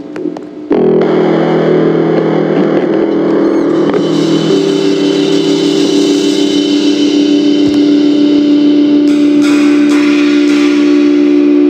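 Loud heavy rock music with distorted electric guitars. The music kicks in abruptly under a second in, and the guitars play long, held chords.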